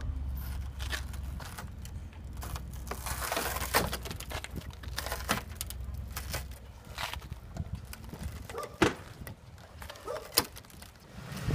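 Hand tool scraping and clicking against the quarter-window frame of a 2007 Toyota Tacoma as the old quarter glass is worked out: irregular scrapes with a few sharp clicks, the loudest about four, nine and ten and a half seconds in.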